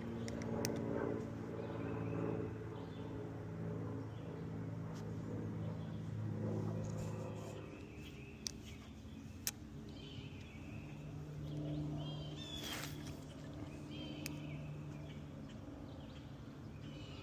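A boat's outboard motor running steadily at low speed, its pitch changing about halfway through, while a bird chirps again and again.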